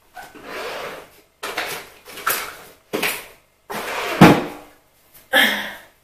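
Rummaging in a bedside-table drawer: a series of short scraping and rustling handling noises, with a heavier knock about four seconds in.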